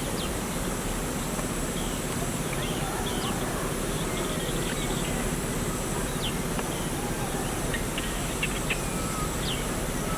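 Birds chirping at a farm: many short, quick chirps scattered throughout, over a steady background noise.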